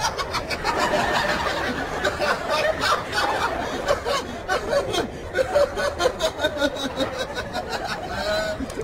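A man chuckling and snickering to himself in repeated short bursts of laughter.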